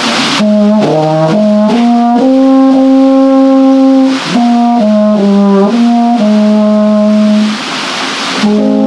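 Church brass ensemble playing a tune in sustained chords, phrase by phrase, starting about half a second in with short breaks about four seconds in and again near the end. The rushing of the water wheel and the river shows through in the pauses.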